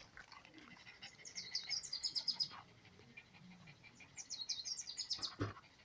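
A small bird singing: two quick trills of high chirps, each about a second long, one in the first half and one past the middle. A short soft knock comes near the end.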